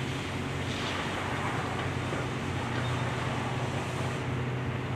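Demolition excavator's diesel engine running steadily, a constant low hum under a broad rough noise as its arm works the broken concrete and rebar of the bridge deck.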